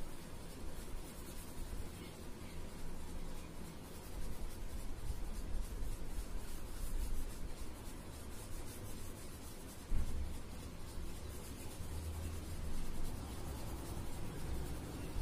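Blue oil pastel rubbing and scratching on paper in quick back-and-forth shading strokes, with a dull bump about ten seconds in.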